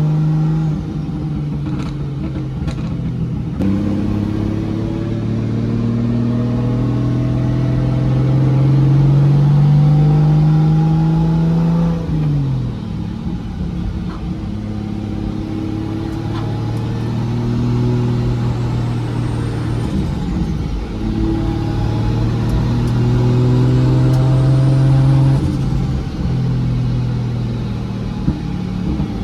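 Nissan C33 Laurel's engine pulling under acceleration while driving: its pitch climbs steadily for several seconds, drops sharply about twelve seconds in, then climbs again later with a faint high whistle rising alongside before dropping once more. The engine is running a bit rich, and the driver thinks the timing might be a bit off.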